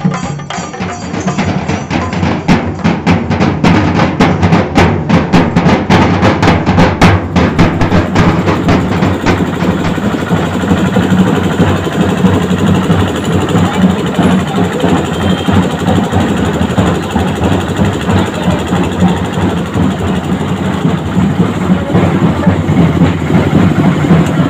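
Fast, dense drumming. For the first several seconds the strokes are sharp and distinct, then they merge into a continuous roll.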